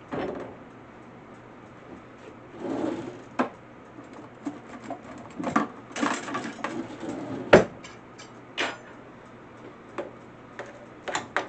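A spoon scraping and knocking against a baking dish of chicken and rice, in scattered clinks and scrapes, with one sharp knock about halfway through.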